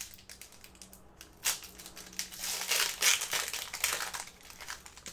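Trading cards and their plastic wrappers being handled: a run of crinkling rustles and light clicks, loudest around the middle.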